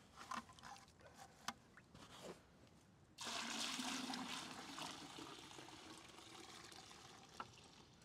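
Maple sap poured from a plastic sap-collection bucket into another bucket, starting suddenly about three seconds in with a full splashing pour that slowly thins out. Before it, a few light knocks from handling the buckets.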